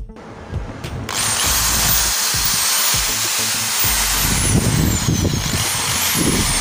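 Rotary hammer drill with a masonry bit running free, its motor starting about a second in with a high whine that rises and falls several times.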